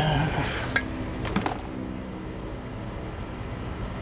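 Metal clinks and scrapes as an outboard's crankcase and crankshaft are handled and turned over on the bench, with a few sharp knocks in the first second and a half. A steady low hum runs underneath.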